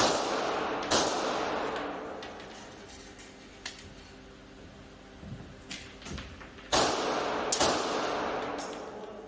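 CZ P-07 9×19 mm pistol fired four times in an indoor range. Two shots come about a second apart, then two more about six seconds later, each with an echoing tail.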